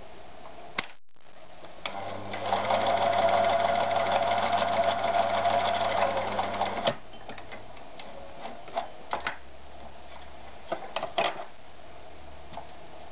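Privileg TopStar 796 Super Automatic sewing machine starting up and stitching steadily for about five seconds, then stopping. A few sharp clicks follow.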